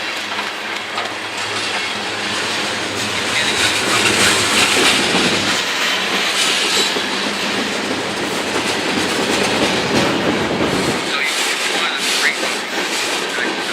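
Cars of a Canadian Pacific mixed freight train rolling past: a steady rush of wheels on rail with clickety-clack of wheels over rail joints. About three quarters of the way through the low rumble drops away and the wheel clicks stand out more sharply.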